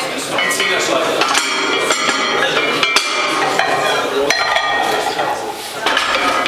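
Cast-iron weight plates clanking against one another and against the barbell sleeves as loaders set up the bar, in a run of sharp ringing metal knocks. Voices murmur underneath.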